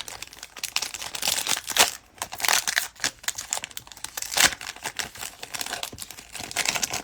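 Foil trading-card pack wrapper crinkling and tearing in irregular crackles as a hard-to-open pack is pulled and worked open by hand.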